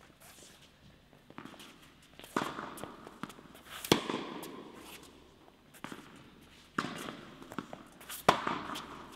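Tennis balls struck by rackets in a rally in an indoor tennis hall: four sharp pops, each hit ringing on in the hall's echo, the two loudest about 4 and 8 seconds in, with fainter ticks between.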